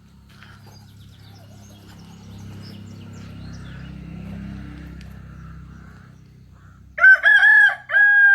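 A rooster crowing near the end: a cock-a-doodle-doo of short rising-and-falling notes, then a long drawn-out note that falls away. Before it, only faint bird chirps over a low rumble.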